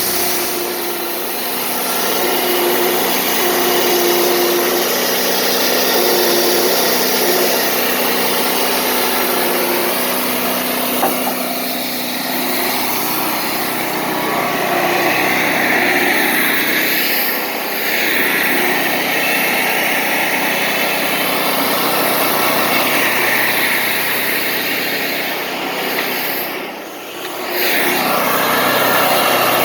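Wood-Mizer LT40 Wide portable band sawmill running under power, its engine steady while the band blade saws through a log, with a short drop in level near the end.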